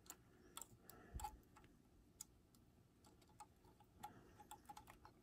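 Near silence with faint, irregular small clicks and ticks of fingers handling a metal diecast model truck and fiddling with its tiny jack parts, with one soft knock about a second in.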